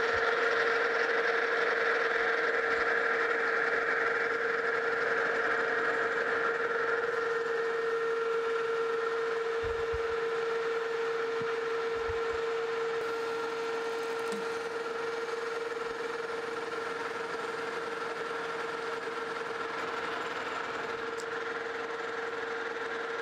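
Metal lathe running at speed while turning a shaft down to diameter: a steady whine from the spindle drive with the hiss of the cut, easing slightly in level as it goes.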